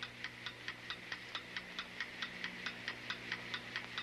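Ticking-clock sound effect, an even run of sharp ticks at about five a second, over a faint steady hum.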